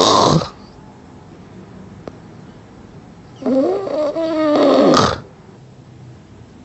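A man snoring in his sleep: a short, loud, rough snort at the start, then a long, wavering, pitched snore of nearly two seconds that breaks off in a rough burst. By the snorer's own account, the snoring comes from his relaxed soft palate and tongue base collapsing and narrowing the airway.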